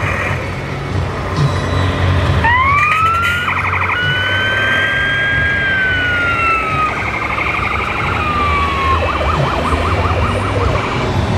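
Electronic siren of a radio-controlled model fire tanker truck's sound module. It winds up a few seconds in, holds a high wail, falls away, and breaks into fast warbling yelps, most steadily near the end, over a steady low rumble.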